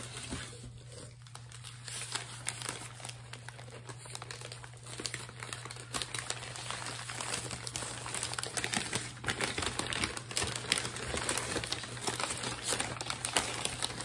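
Newspaper packing rustling and crinkling as it is pulled open and crumpled by hand, getting louder and busier about halfway through.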